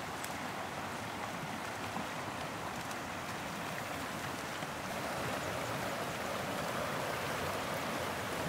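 Small rocky stream rushing and gurgling over riffles in a steady wash of water noise, a little louder from about halfway through.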